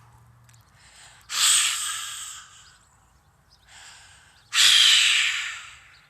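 A person blowing breath out hard through the mouth twice, each a loud hissing exhale that starts sharply and fades over a second or so, with a softer breath between them.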